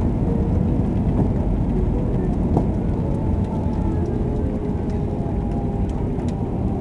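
Steady low rumble of an Airbus A320-family airliner heard from inside the passenger cabin, the engines and airflow running evenly with a few faint steady tones in it.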